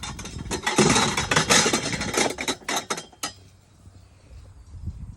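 Plastic crinkling and rustling in quick, dense crackles as a heavy-duty garbage bag holding the folded pool liner is handled, stopping about three seconds in.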